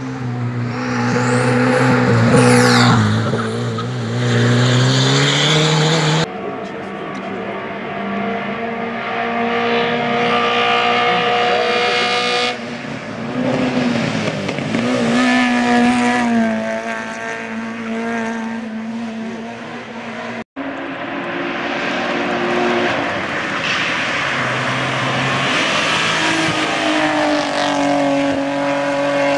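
Hill-climb race cars driving hard past one after another, each engine revving high and dropping through gear changes. The sound cuts abruptly twice as one clip gives way to the next.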